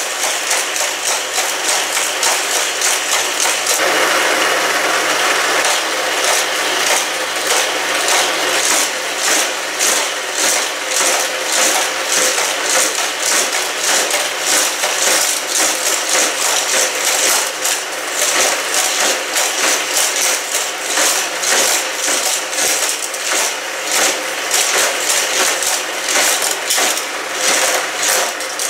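Two motorized Hot Wheels Criss Cross Crash track sets running at once: their battery-driven booster wheels whir steadily while die-cast cars clatter through the plastic track loops, with rapid clicks and rattles throughout. The sound thickens about four seconds in.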